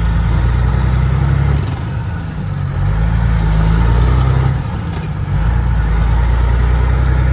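Cat 3406E inline-six diesel of a loaded Freightliner FLD120 semi pulling away, heard from inside the cab, its deep engine note dropping off twice, about 2 and 5 seconds in, between gears as it picks up speed.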